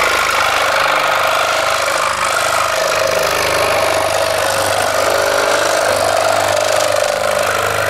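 Einhell TC-SS 405 E electric scroll saw running steadily, its reciprocating blade cutting a thin strip of wood. The saw is vibrating a lot, which is put down to the rubber mat beneath it.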